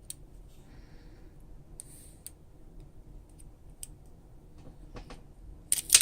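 Faint clicks and light scraping of small tools on the internals of an iPhone 5s, then near the end a sudden loud, sharp clatter as a small part springs loose.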